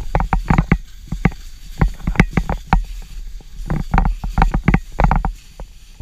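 Skis sliding and scraping over packed snow, an irregular run of short, sharp knocks and scrapes.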